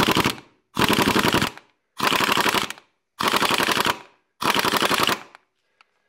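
Ingersoll Rand 2235TiMAX half-inch air impact wrench, in reverse with its power turned up all the way, hammering in short trigger bursts of under a second, about one a second, each a rapid rattle of blows. It is still on a standard quick-disconnect air fitting that starves it of air, which leaves it anemic and weak-hitting.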